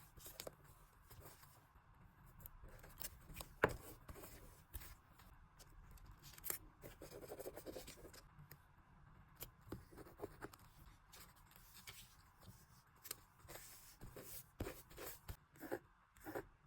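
Scissors snipping paper and paper stickers being handled and rubbed down for a journal collage. It sounds like a scatter of soft clicks and snips, with a longer paper rustle about halfway through.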